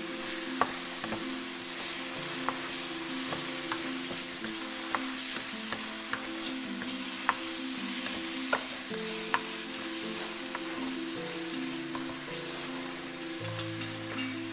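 Onion, tomato and spice masala sizzling in hot oil in a pan while being stirred, with irregular ticks of the utensil against the pan about once or twice a second.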